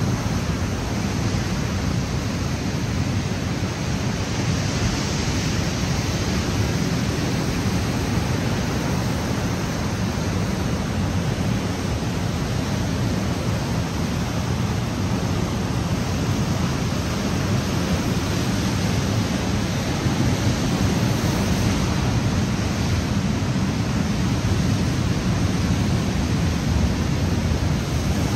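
Ocean surf and wind: a steady, even rushing noise, heaviest low down, with no breaks or separate events.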